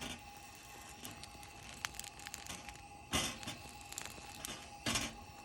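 Rustling and crinkling handling noise with scattered small clicks, and two louder rustles about three and five seconds in, over a faint steady tone.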